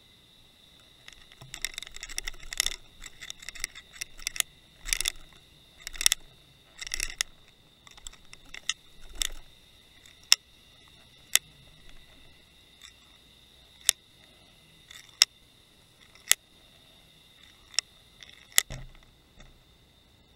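Clicks and scratchy rattles of an underwater camera rig on a fishing line knocking and rubbing as it moves over the sea floor. Dense rattling comes first, then single sharp clicks about once a second, over a faint steady high whine.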